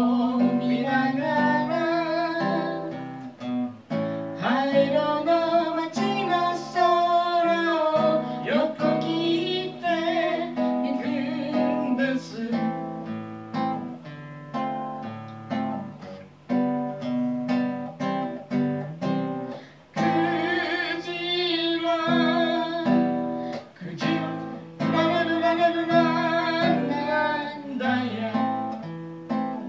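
A man singing to his own acoustic guitar accompaniment in a live performance, with plucked and strummed chords throughout and the voice coming and going over them.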